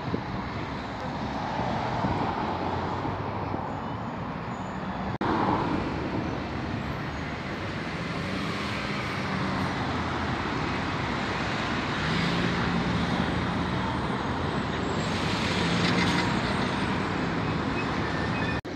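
City street traffic: a steady noise of cars and vans driving past, with engine hum swelling now and then as vehicles go by.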